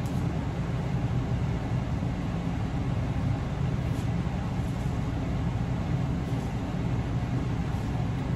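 A steady low rumble of background noise, even throughout, with no distinct events.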